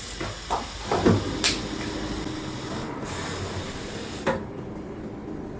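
Tyre changing machine at work: a few short metal knocks, then a steady air hiss that cuts off with a click about four seconds in.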